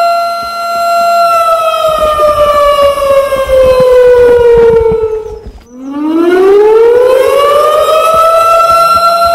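A siren-like wail on one steady pitch. It winds down in pitch, cuts out briefly about halfway through, then winds back up to its original pitch. Faint low thumps run underneath while it falls and rises.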